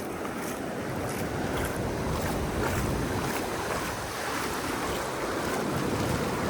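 Ocean surf washing at the shoreline, with wind buffeting the microphone.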